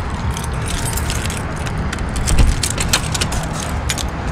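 A ring of keys jangling and clicking as they are handled at the lock of a metal door, with one low thump about two and a half seconds in, over a steady low rumble.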